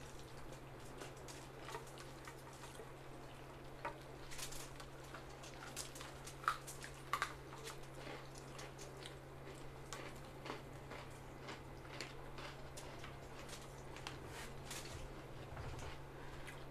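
Several people eating with their hands, chewing and smacking their lips, with many small clicks and wet squishes of food and fingers; a few sharper clicks stand out about six and seven seconds in. A low steady hum sits underneath.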